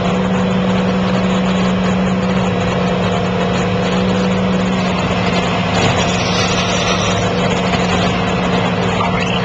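Excavator diesel engine and hydraulic system running steadily to power an excavator-mounted hydraulic pile cutter, with a constant low hum throughout. The sound brightens slightly about six seconds in.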